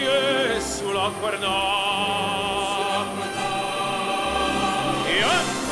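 Operatic singing as background music: a singer holds long notes with a strong vibrato and glides between pitches.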